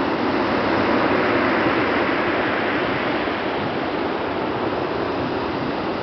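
Rough sea surf breaking and washing up a pebble beach: a continuous, fairly loud rushing noise with no pauses.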